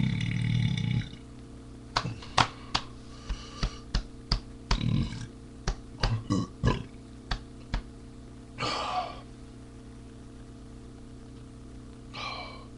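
A loud, drawn-out burp through the first second, followed by a run of sharp clicks and knocks over the next several seconds and a short breathy hiss near the end.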